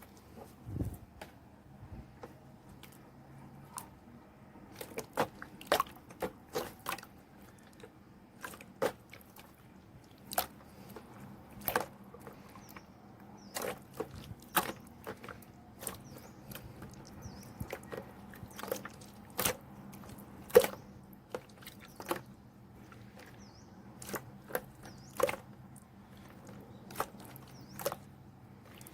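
Slime being squeezed and pressed by hand, giving irregular sharp clicks and pops of trapped air, some much louder than others.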